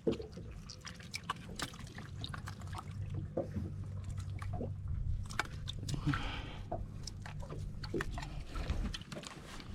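Live prawns flicking and skittering on a wet mat while a cast-net catch is sorted by hand: many small sharp clicks and taps, with a brief splash of water about six seconds in, over a low steady hum.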